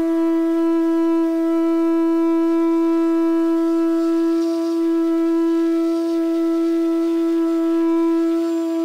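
Transverse bamboo flute (odakuzhal) holding one long, steady note in raga Amritavarshini.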